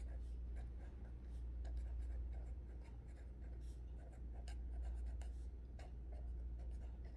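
Faint scratching of handwriting as the notes are written out, with a steady low hum underneath.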